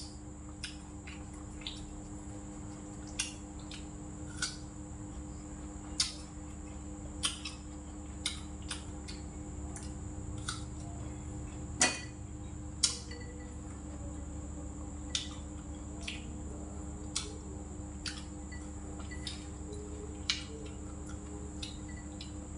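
Spoon and chopsticks clinking against metal and ceramic bowls during a meal: scattered sharp clicks, about one every second, the loudest near the start and twice about halfway through. A steady background hum runs underneath.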